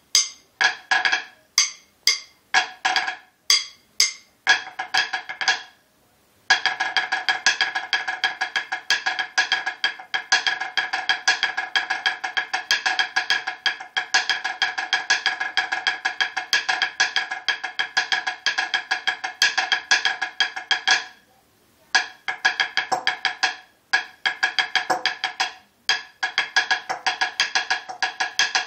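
Snare drum struck with wooden sticks, playing a sixes rudiment exercise. For about six seconds the strokes are spaced and accented, each ringing briefly. Then comes a dense, unbroken run of fast strokes lasting about fifteen seconds, a short break, and spaced groups of strokes again.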